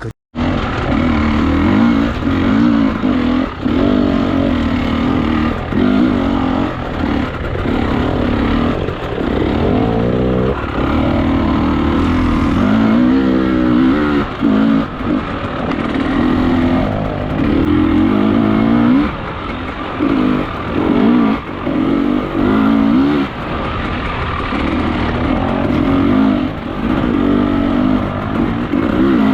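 Enduro dirt bike engine running under way, its pitch repeatedly rising and falling with the throttle.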